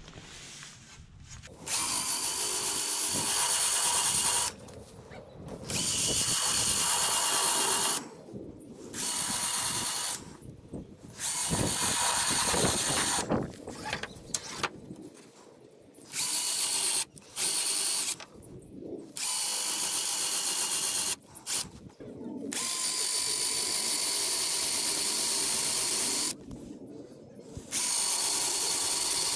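Power drill with a flat spade bit boring holes into wooden ceiling-molding boards. It runs in repeated bursts of a few seconds each, with short pauses between them.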